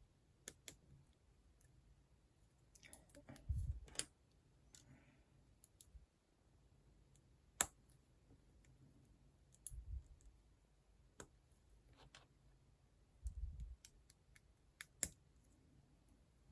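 Small plastic building bricks being handled and snapped together, giving scattered sharp clicks with quiet gaps between them. Three short, soft thumps of pieces or hands against the desk come at intervals.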